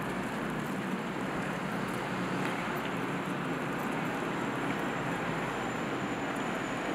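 Boeing Jetfoil 929-115 hydrofoil ferry under way: the steady, even rush of its gas-turbine propulsion, with a faint high whine.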